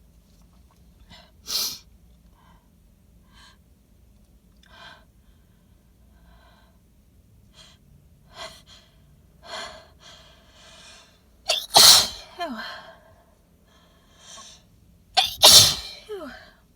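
A woman's pollen-triggered sneezing fit: short hitching gasps and sniffs as the sneeze teases, then two loud, wet sneezes into cupped hands a few seconds apart near the end.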